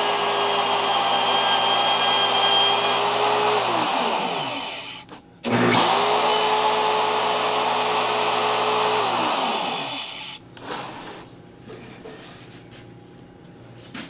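Router running and cutting a light pass across a wooden sanding drum, its high motor whine holding steady, then winding down about four seconds in. After a brief gap it spins up again, holds, and winds down near nine seconds, followed by quieter handling noises.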